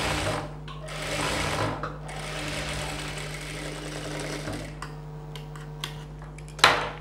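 Electric sewing machine stitching a blouse seam in three runs, the last and longest stopping about four and a half seconds in. A few light clicks follow, then a sharp snip of scissors near the end.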